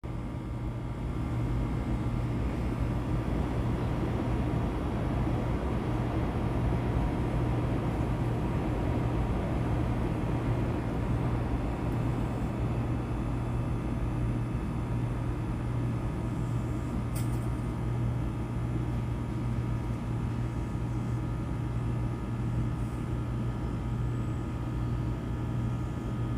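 Steady low hum of outdoor street ambience, with a single short click about 17 seconds in.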